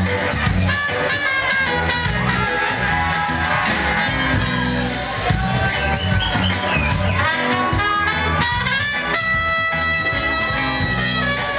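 Live reggae band playing, with a horn section of trumpet, trombone and saxophone over drums and bass; the horns hold a steady chord over the last couple of seconds.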